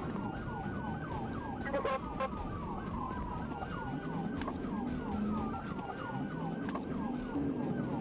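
Police car siren sounding from the pursuing patrol car, with a fast yelp of about five sweeps a second and a slower wail sweeping over it at the same time. Engine and road noise run underneath.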